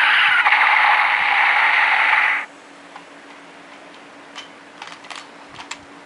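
DX Drive Driver toy belt playing an electronic sound effect through its small speaker: a loud hissing rush with falling whooshes, which cuts off suddenly about two and a half seconds in. A few faint clicks follow.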